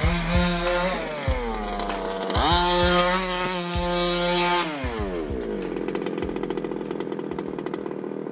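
Small nitro engine of an HPI short-course RC truck revving up and down as the truck is driven hard on dirt, with a hiss of thrown dirt while it slides through a turn. About five seconds in the revs drop and the engine settles into a steady rattly idle.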